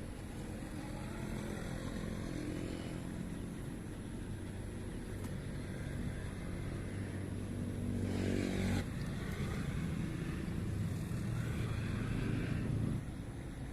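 A small engine running, its pitch rising to a peak about eight seconds in and then falling away abruptly; it builds again and drops off shortly before the end.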